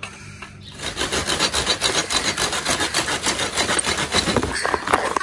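Hand pruning saw cutting into a hard bush lemon branch with fast back-and-forth rasping strokes. It starts about a second in and stops abruptly near the end.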